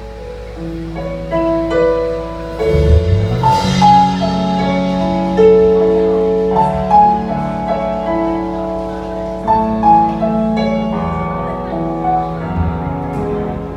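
Live band playing an instrumental passage: sustained keyboard chords and melody over held bass notes, with a few low drum hits.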